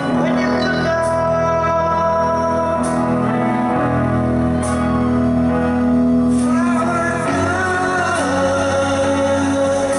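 Live rock band playing: sustained keyboard chords over bass and drums, with a voice singing over the band, its line wavering in pitch in the second half.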